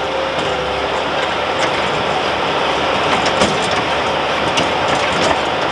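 Bobcat skid-steer loader's engine running steadily under load, with a few sharp knocks and clanks scattered through it.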